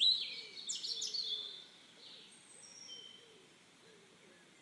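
A run of short, high, bird-like chirps and tweets in a cartoon soundtrack, loudest at first and dying away, ending about three seconds in.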